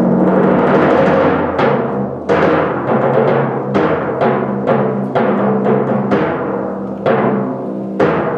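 Timpani representing the hunters' shotgun blasts: a rumbling roll for about the first second and a half, then a string of about a dozen sharp, ringing single strokes.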